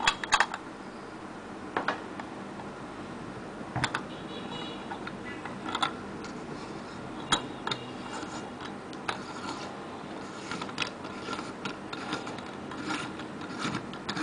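Steel tubular box spanner clicking and clinking against the chrome body of a Grohe basin mixer as it turns the cartridge's retaining nut. Scattered sharp metal clicks come every second or two, a few of them ringing briefly.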